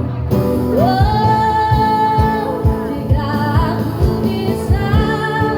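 Live street band performing a pop song: a woman sings, holding one long note, over the band's steady low beat.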